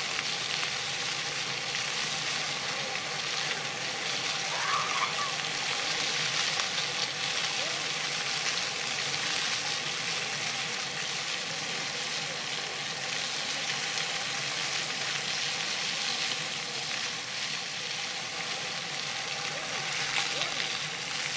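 Splash-pad fountain jets spraying and splattering onto wet paving, giving a steady hiss of water.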